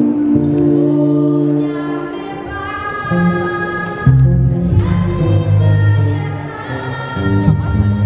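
A congregation singing a gospel hymn together in chorus, with long held notes. A heavy low part comes in about four seconds in.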